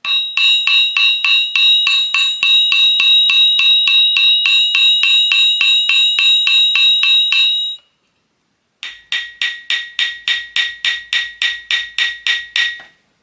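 Aluminium extruded profiles tapped repeatedly, about four strikes a second, as a damping test. The first profile rings on with a steady high ringing between strikes, as a hollow profile does. After a short pause a second run of taps rings at a different pitch and dies away between strikes, as a profile filled with epoxy granite does.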